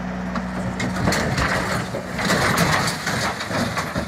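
An idling engine hums steadily under a loud, rough crackling noise.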